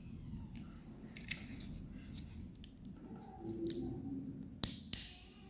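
Hand crimp tool closing on an RJ45 plug on a UTP network cable: a few sharp clicks, the loudest two close together near the end.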